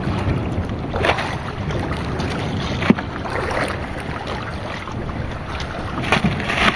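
Wind buffeting the microphone over water washing around a small outrigger fishing boat, with a couple of light knocks as fish are handled between a bucket and a cooler.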